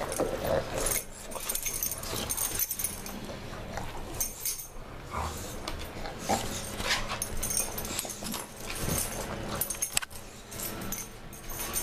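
An English bulldog and a Greater Swiss Mountain Dog play-wrestling at close range, with irregular dog noises and the jingle of collar hardware.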